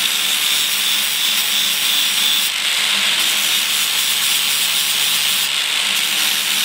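Angle grinder with an abrasive disc running steadily against the edge of a powder-coated steel differential cover, grinding the powder coat off to prepare the metal for welding.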